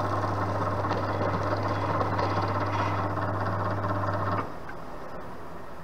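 Milling machine running with a steady electric motor hum as a flat-bottomed endmill finishes a radial milling cut and is drawn clear of the workpiece; the motor hum stops abruptly about four and a half seconds in.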